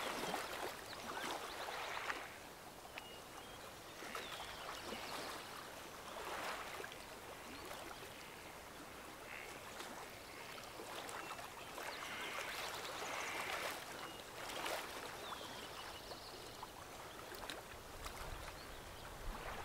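Faint outdoor ambience: a steady soft wash of noise like moving water, with a few faint clicks and brief faint chirps. No power tool is heard running.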